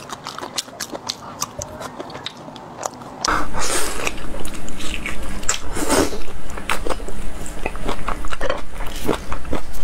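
Close-miked eating sounds: wet biting, chewing and lip smacking on marinated seafood, many short clicks and smacks. About three seconds in it turns much louder, with wet sucking as raw marinated scallops are bitten and pulled off their shells, over a low steady hum.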